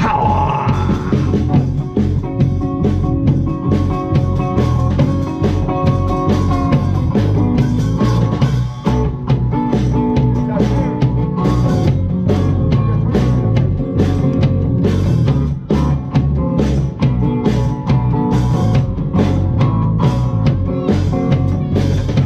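Live blues band playing an instrumental passage between verses: upright bass and drum kit keeping a steady beat under an acoustic guitar.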